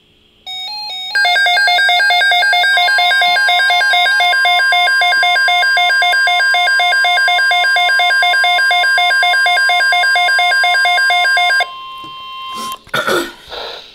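Weather alert radio sounding a rapid, evenly pulsing alarm beep. About two seconds in, the NOAA Weather Radio 1050 Hz warning alarm tone starts underneath it and holds steady for about ten seconds, signalling the start of a new emergency alert broadcast, a flash flood watch. Both stop near the end, followed by a short burst of noise.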